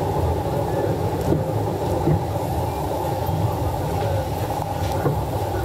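Narrow-gauge steam train moving slowly out along the platform, heard from a carriage window: a steady rumble of the carriage on the rails with a few faint clicks.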